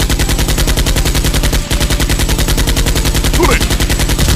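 Machine-gun fire sound effect: a rapid, unbroken stream of evenly spaced shots, laid over Nerf blasters being fired.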